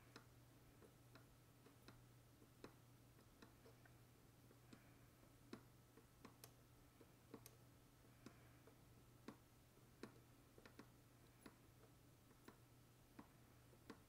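Near silence: a low steady hum with faint, irregular clicks, roughly one or two a second.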